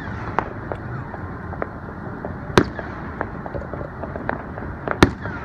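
Aerial fireworks shells bursting: two loud bangs about two and a half seconds apart, with several smaller pops between them.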